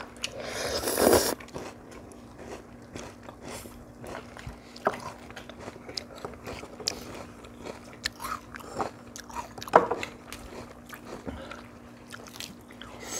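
Several people chewing and biting food at a table, with short clicks of chopsticks against bowls. A brief, louder noisy sound comes about a second in.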